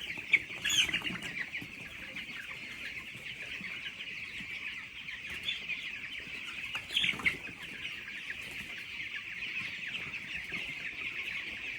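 A large flock of 17-day-old chicks in a poultry shed peeping together in a steady, high-pitched chorus, with a few louder calls standing out about a second in and again past the middle.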